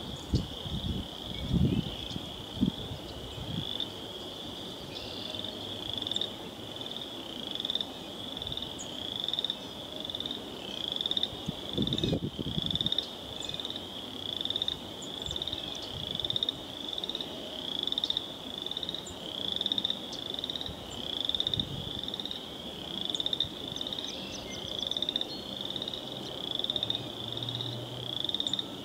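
A frog calling over and over, a short rising trill repeated about once a second. A few low thuds sound in the first few seconds and again about twelve seconds in.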